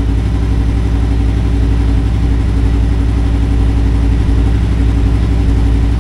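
2023 Yamaha MT-10's crossplane inline-four idling steadily, breathing through a Leo Vince de-cat mid pipe and the stock muffler.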